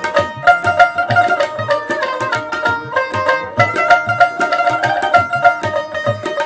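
Instrumental background music: a plucked-string melody over a steady hand-drum beat.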